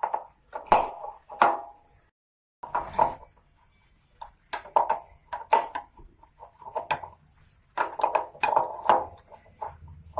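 Steel spanner clinking and clicking against a motorcycle chain-adjuster bolt as it is worked tight, in several short bursts of metallic clinks.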